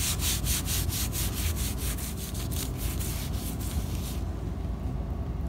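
Paper towel rubbed briskly back and forth along a vintage TV cable's jacket, scrubbing sticky old grime off it, in quick strokes about four or five a second that stop about four seconds in.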